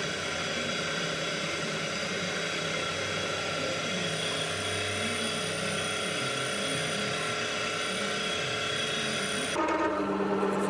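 Milling machine running steadily while it cuts out the centre hole of a motorcycle disc carrier. Near the end the sound changes abruptly to a louder, deeper machine hum.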